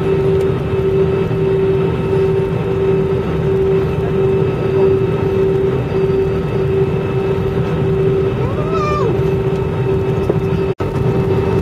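Airliner cabin noise while taxiing: the jet engines and airflow run as a steady hum with a constant droning tone. About two-thirds through there is one short squeal that rises and falls in pitch, and near the end the sound cuts out for an instant.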